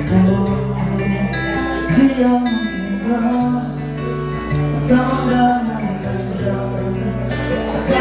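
Live male singing through a microphone over acoustic guitar, with held low bass notes underneath.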